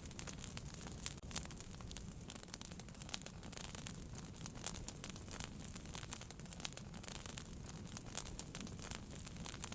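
Wood fire burning in a fireplace, crackling with frequent irregular sharp pops and snaps over a low steady rumble.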